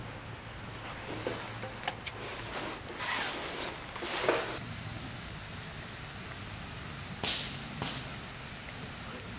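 Wood campfire crackling and hissing steadily, with a few sharp pops. Just after four seconds in, a metal camp mug clatters down onto a metal mesh table.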